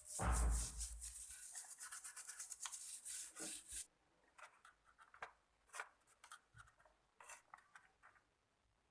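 Rapid scratching and rubbing strokes for about four seconds, then scattered light clicks and scrapes.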